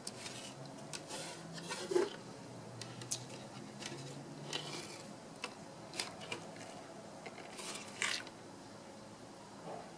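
Handling noise from a plastic modem router being turned over in the hands: soft rustling scrapes with scattered small clicks and taps, the loudest about two seconds in and about eight seconds in.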